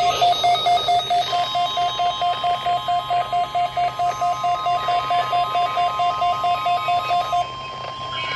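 A weather radio receiver's alarm beeping rapidly, about four or five beeps a second, stopping about a second before the end. Under it, from about a second in, the steady NOAA Weather Radio 1050 Hz warning alarm tone, the test signal that sets such receivers off.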